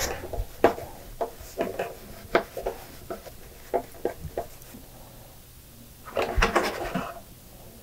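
Hands handling a plastic RC car body and pressing a paper towel over a freshly applied decal: scattered light clicks and taps, with a short louder patch of rubbing and handling about six seconds in.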